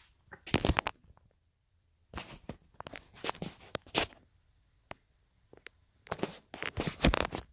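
Small plastic toys being handled: rustling, crunching and clicking in three bursts, about a second in, from about two to four seconds, and again near the end.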